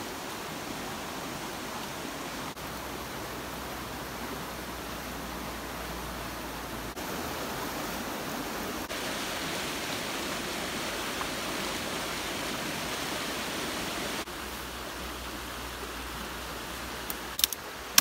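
Steady, even outdoor background hiss, a little louder in the middle. Near the end there are a few sharp clicks close together.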